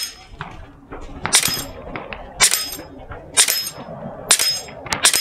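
LCS Air Arms SK-19 .22 calibre PCP air rifle fired in semi-auto: five sharp shots about a second apart, each with a brief high metallic ring.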